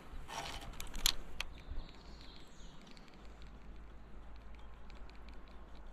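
Rustling handling noise and a sharp click about a second in, then a run of faint, rapid ticks from a spinning reel being cranked slowly while the rod tip is shaken, with a low rumble of wind on the microphone.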